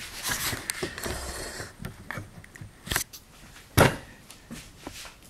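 Colored pencil scratching marks across the spines of a stack of paper signatures, then small handling clicks and two sharp knocks as tools are set down on a cutting mat, the second knock the loudest.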